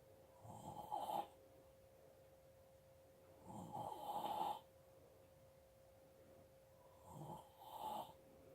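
Snoring: three snores about three seconds apart, the last one coming in two parts.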